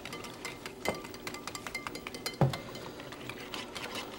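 Wire whisk beating egg yolks and half-and-half in a china bowl, its tines clicking rapidly against the bowl, with a couple of louder knocks.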